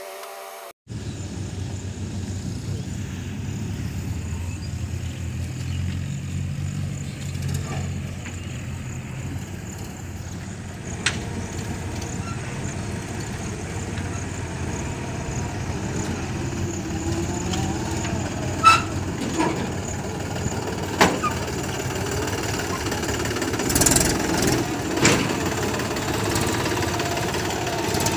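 Diesel engine of a JCB 3DX backhoe loader running steadily while loading mud, with a few sharp knocks from the machine working, the loudest about two-thirds of the way through.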